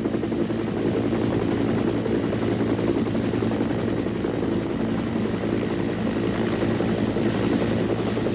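Sikorsky HRS helicopter's engine and rotor running steadily: a continuous droning hum with a fast beat from the rotor.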